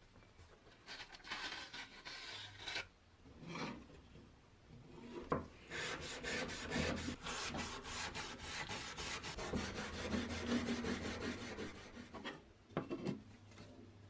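Non-woven abrasive pad scrubbed rapidly back and forth over a small flat wooden plate, a long run of quick rubbing strokes through the middle, with a couple of sharp knocks near the end.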